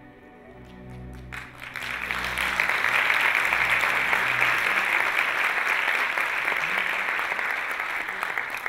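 Audience applauding: a few scattered claps as the last low notes of the music die away, then about a second in the clapping swells into steady, dense applause.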